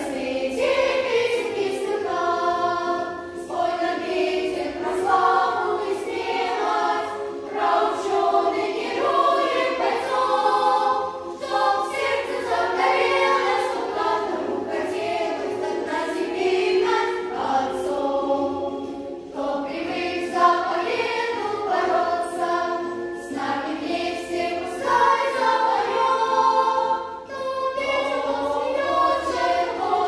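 Children's choir singing a song in Russian, with short breaks between phrases.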